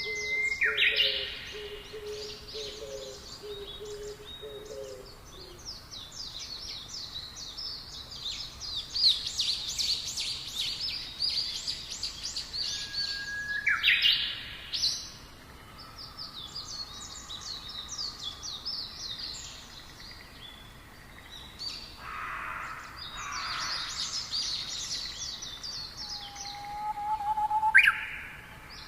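Several wild birds singing together: dense, rapid high-pitched chirps and trills, with a low hooting call repeated over the first five seconds. Loud upward-sweeping calls come about a second in, around fourteen seconds, and near the end.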